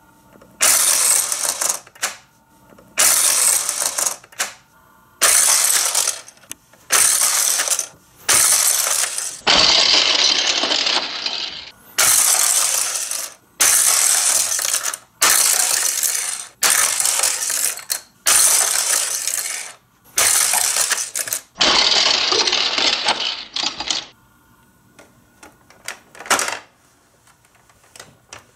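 Micro Machines die-cast cars racing round a plastic speedway track: a loud rattling clatter in about a dozen runs of one to two seconds each. Near the end it gives way to a few fainter plastic clicks.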